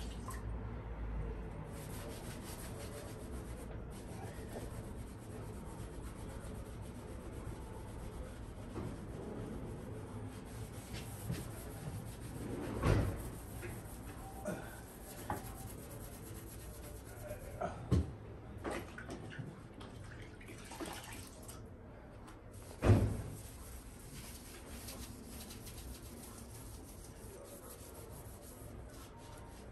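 A sponge wiping and rubbing along a window frame, with a few short knocks against the frame; three of them are louder, spread through the middle.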